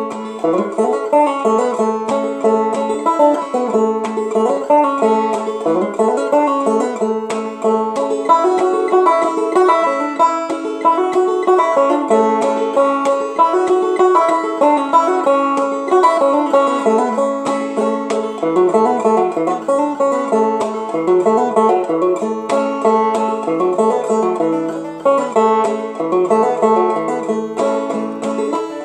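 Banjo played clawhammer style: a steady, unbroken stream of plucked and brushed notes in a lively old-time tune.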